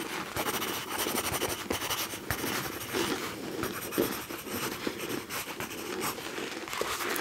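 Close-miked scratching and rustling, dense and continuous, with many fine ticks.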